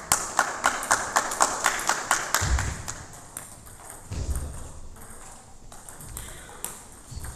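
Table tennis ball clicking fast and evenly, about five times a second, for the first two and a half seconds. After that come spaced-out clicks of the ball on table and bats in a rally, with a few low thuds of players' feet on the floor.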